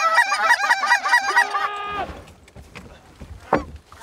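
Goose calls blown rapidly, many overlapping honks and clucks with one held note, that stop abruptly about two seconds in. After that only a faint low rumble and one short call.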